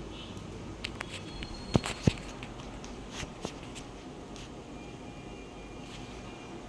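A handful of short sharp clicks and taps over a steady low hum, the two loudest close together about two seconds in.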